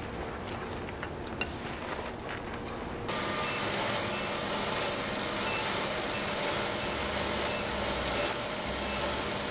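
Sawmill machinery running, with scattered clicks and knocks for the first three seconds. After a sudden change, steady machine noise carries a short high beep repeating about twice a second, a vehicle's reversing alarm.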